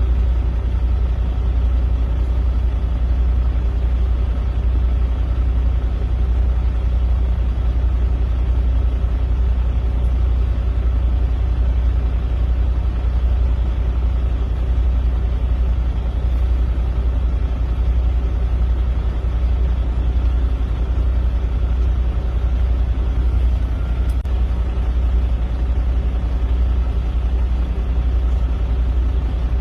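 A heavy vehicle's engine running at a steady speed with a deep, even hum, holding the same pitch throughout.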